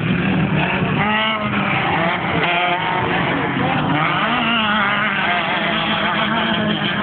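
Off-road race car engines running hard, pitch rising and falling repeatedly as they rev and accelerate.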